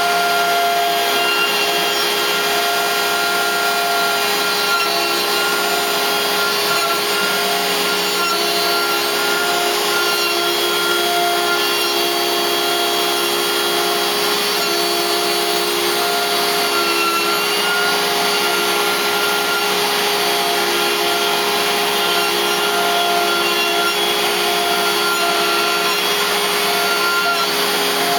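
A DeWalt compact router on a CNC machine runs steadily while its carbide ball-nose bit roughs out wood at shallow passes. Over it the machine's motors whine in pitches that come and go as the axes move.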